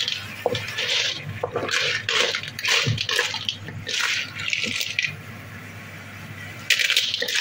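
Cooked sea snails being stirred in a thick sauce in a pan with a wooden spatula: a run of wet scraping strokes, about two a second, then a pause and another stroke near the end.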